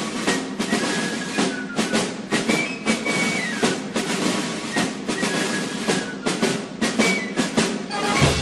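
Music with a busy drum part: many quick, sharp drum strikes over held notes.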